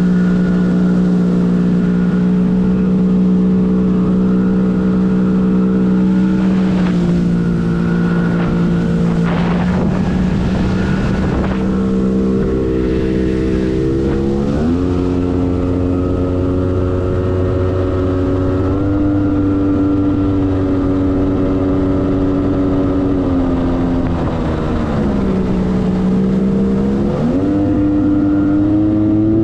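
Arctic Cat TigerShark Monte Carlo 1000 personal watercraft's two-stroke engine running under way at a steady pitch, which drops with the throttle several times and climbs back, notably in a longer dip and rise near the end. Rushing water spray is heard about ten seconds in.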